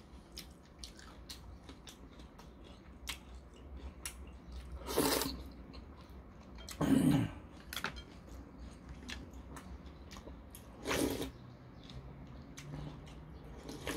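A person eating udon noodles in broth: wet slurping and chewing, with small clicks of chopsticks on the bowl. There are a few louder slurps, the last as broth is sipped straight from the bowl about eleven seconds in.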